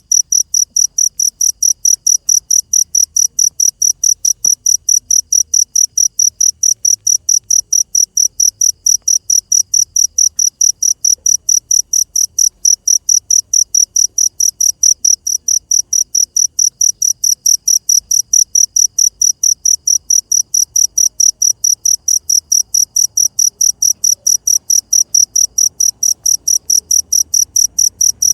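Field cricket chirping steadily in a shrill, even rhythm of about three chirps a second.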